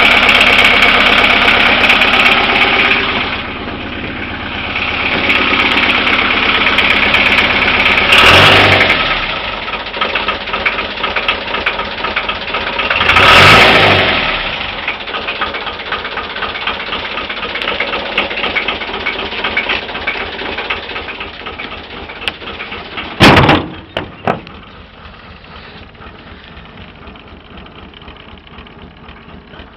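Narrowboat engine running steadily, with two brief surges in revs about eight and thirteen seconds in. Two sharp knocks a second apart come near the end, after which the running is much quieter.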